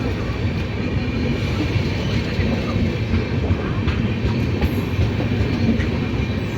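Indian Railways train rolling along the track with a steady, loud rumble of wheels on rails.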